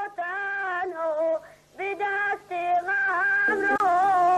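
A single voice singing long, held notes that waver in pitch, in short phrases with brief breaks, over a faint steady hum.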